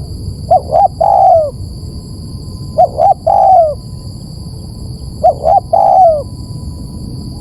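Spotted dove cooing: three repeated calls, each two short coos followed by a longer coo that falls away at the end, about every two and a half seconds. A steady low hum and faint high steady tones run underneath.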